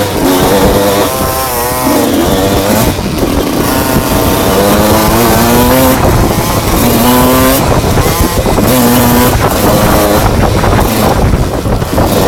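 Enduro motorcycle engine, loud, revving up and dropping back again and again as it is ridden, with a rough noise of wind and terrain underneath.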